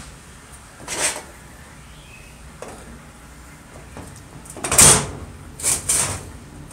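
Metal scraping and clunking from a hand tool working on the rusty steel base and bracket of an old circular saw: a short scrape about a second in, a louder, longer one just before five seconds, then two quicker ones.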